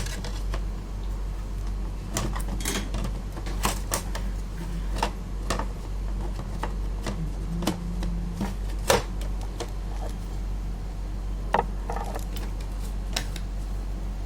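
Scattered clicks and knocks from hand work on a Canon LiDE 120 flatbed scanner's plastic parts, over a steady low hum.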